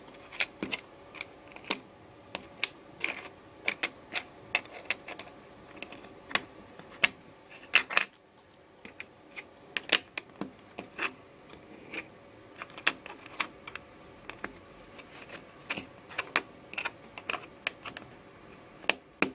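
LEGO bricks being handled and pressed together: irregular sharp plastic clicks, a few a second, with a quick cluster about eight seconds in.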